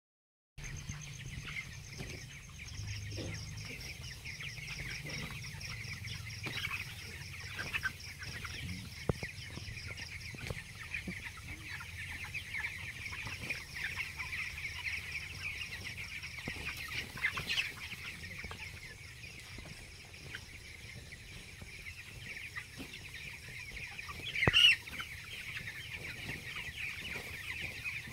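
A flock of 16-day-old broiler chickens calling together: a dense, steady chatter of peeps and clucks, with one louder call about 24 seconds in.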